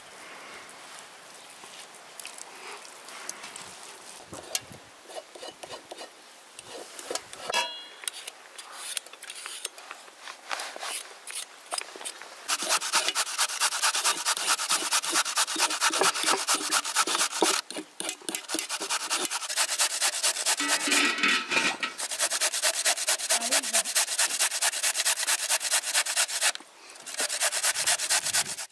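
Carrot being grated on a metal box grater: a loud run of fast rasping strokes, with two short breaks, starting about twelve seconds in. Before it, softer handling noises of cooked chicken meat being pulled apart by hand.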